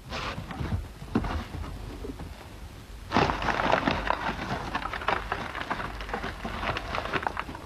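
Plastic bag liner in a cardboard box crinkling and rustling as a hand digs through it: a few rustles at first, then a dense run of crackling from about three seconds in.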